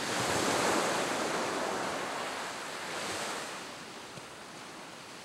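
Surf washing up on a beach: one swell of wave noise soon after the start that slowly dies away, and a smaller one about three seconds in.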